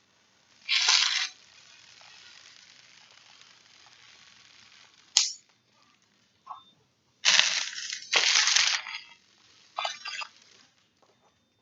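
Bird seed being poured into a plastic bottle. A rattling rush about a second in is followed by a faint steady hiss of seed running in, then two louder rushes past the middle and a smaller one near the end.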